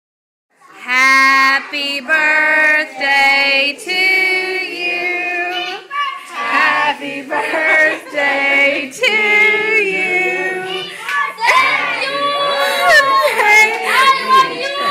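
A woman singing long held notes with no instruments behind her; from about two-thirds of the way in, other voices overlap hers.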